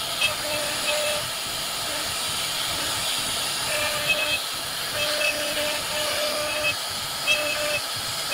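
CNC router spindle carving a relief pattern into a wooden door panel: a steady hiss of cutting with a high whine that comes and goes in short stretches as the bit moves through the wood.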